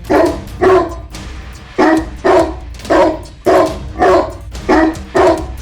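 A dog barking repeatedly, about nine short barks at roughly two a second with a brief pause about a second in, over background music.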